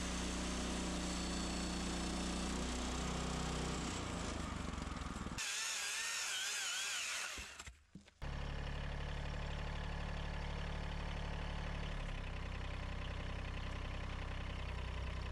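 A chainsaw on a log mill running at a steady low speed, its note shifting a few times. A little before the middle the low engine sound drops out for about two seconds, leaving a higher wavering whine, then a brief near-silent gap before the steady engine sound returns.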